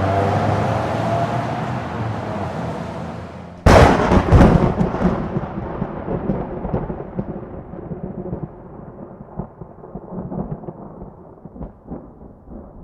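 A car engine running, its pitch gliding upward, cut off about three and a half seconds in by a sudden loud thunderclap. The thunder rolls and crackles away, fading over the following seconds.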